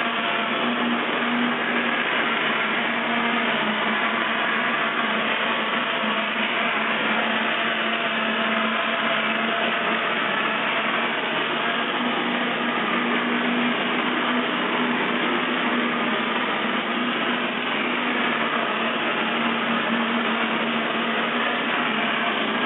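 Mortar spraying rig running steadily: the pump and spinning-head applicator spraying calcium aluminate mortar give a constant whirring noise over a steady low hum.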